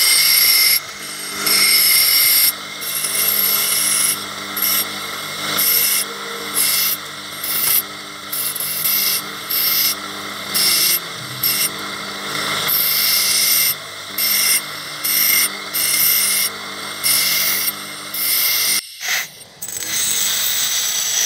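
Electric bench grinder running with a steady hum while a small metal carburettor throttle slide is pressed against the spinning wheel in repeated short strokes, each giving a harsh grinding rasp as the slide is ground shorter. About nineteen seconds in the sound breaks off briefly, then a grinder carries on.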